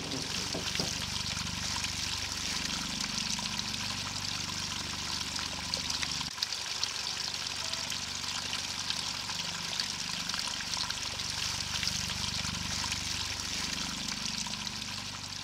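Shallow stream trickling steadily over stones and leaves, under a low, slowly shifting musical drone.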